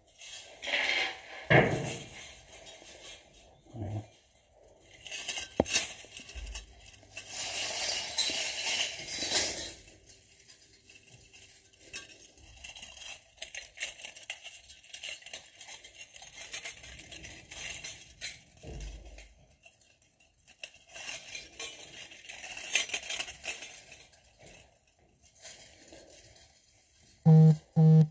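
Pieces of gold-coloured silver jewellery (chains, bangles and pendants) jingling and clinking against each other as they are handled and lifted, in uneven spells with quieter pauses between. Two short, loud pitched sounds come near the end.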